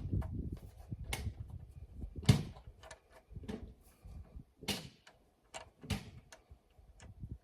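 Irregular knocks and clatters, as of tools and parts being handled during engine work, with the loudest knock about two seconds in.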